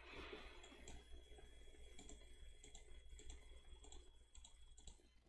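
Near silence with faint, irregular clicks from a computer being operated, over a low steady hum.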